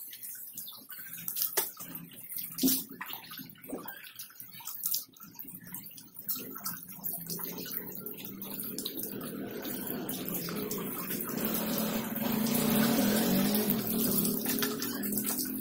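Water splashing as it is poured from a plastic dipper over a wet Shih Tzu puppy during a bath. Scattered splashes and drips come first, then a steadier run of water that grows louder in the second half.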